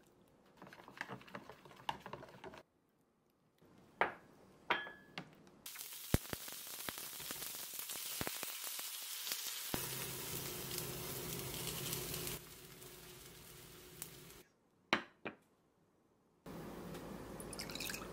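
A spoon stirring flour batter in a bowl, then two sharp knocks, then seafood-and-scallion pancake batter sizzling in oil in a frying pan for several seconds, the loudest sound. Near the end, liquid pours into a ceramic bowl.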